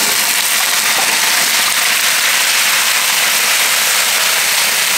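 Cubed potatoes, carrots, swede and sweet potato sizzling on a hot, oil-sprayed stainless-steel plancha: a loud, steady hiss of searing vegetables.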